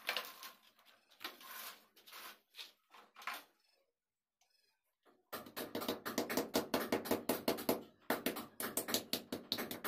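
Small hammer striking at the brick wall to fix an electrical conduit pipe in its chase. There are scattered knocks at first, a brief gap, then a fast run of ringing strikes, several a second.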